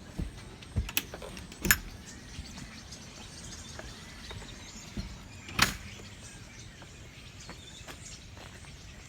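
A large flock of birds chirping together as a dense, continuous chorus, broken by three sharp knocks or clicks in the first six seconds.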